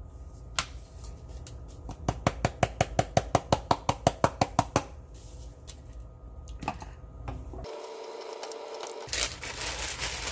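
Spice container of dried parsley shaken over a saucepan: a quick run of about twenty sharp clicks, some seven a second, with a few single clicks before and after.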